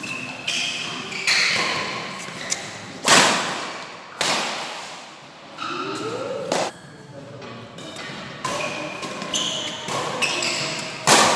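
Badminton rally in a large hall: rackets strike the shuttlecock at irregular intervals, with the hardest, echoing hits about three seconds in and again near the end.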